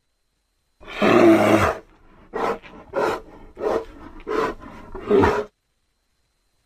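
Grizzly bear roar used as a film creature sound effect: one loud roar lasting about a second, followed by five shorter growls in quick succession, then it stops.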